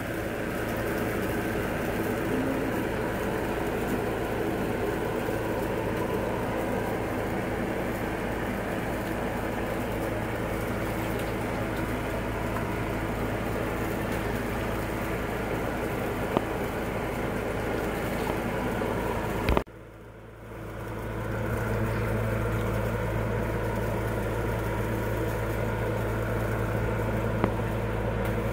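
Steady mechanical hum from a running motor, with several held tones. About two-thirds of the way through it cuts out with a click, then builds back up over a second or two and runs on.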